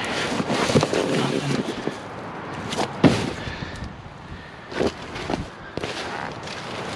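Scrap metal and wire being handled and sorted: rustling with a few sharp knocks and clanks, the loudest about three seconds in.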